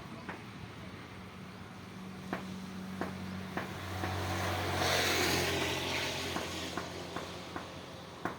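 Steady rain hiss with water dripping in irregular single drops. A motor vehicle passes on a wet road, swelling to its loudest about five seconds in with a low engine hum and tyre hiss, then fading.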